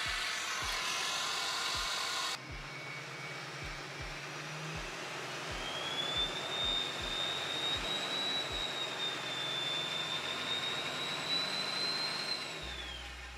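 LBZ Duramax 6.6-litre V8 turbodiesel idling, with a high whistle that wavers for several seconds and falls away near the end. The sound drops abruptly about two seconds in.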